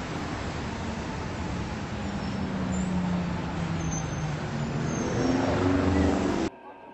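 Loud vehicle noise with a low, engine-like drone. It grows louder toward the end and cuts off abruptly near the end.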